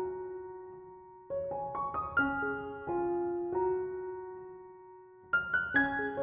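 Background music: a slow piano melody of single struck notes left to ring and fade, with a new phrase starting about a second in and another near the end.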